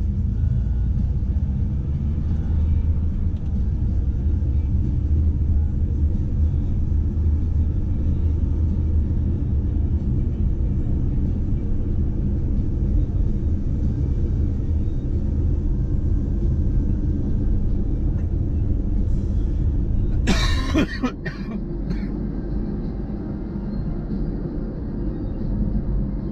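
A car on the move, with a steady low rumble of road and engine. About twenty seconds in comes one short, sharp burst of noise with a couple of fainter knocks just after, and then the low rumble is quieter.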